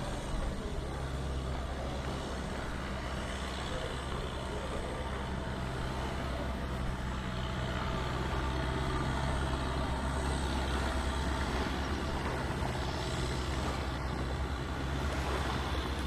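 Steady low drone of an engine running at a constant speed.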